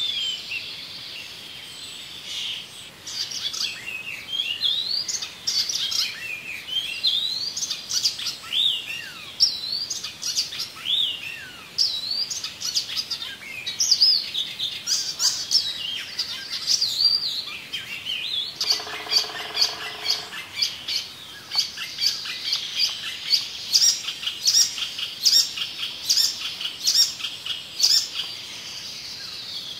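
Songbirds chirping and singing, many quick rising and falling notes overlapping. A short, lower pitched call sounds about two-thirds of the way through, and near the end one bird repeats a short sharp note about twice a second.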